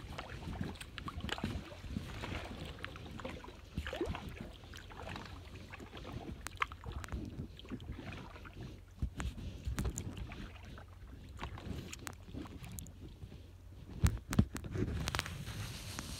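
Kayak paddling on calm water: irregular small splashes and drips from the paddle strokes over a low wind rumble on the microphone, with two sharp knocks near the end.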